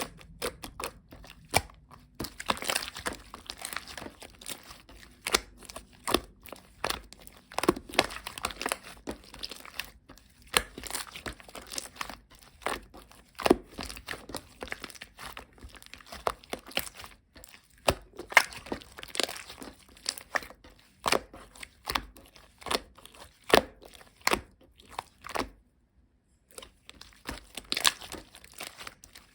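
Soft slime that keeps going runny, squished and stretched by hand: a run of irregular sticky clicks, pops and crackles.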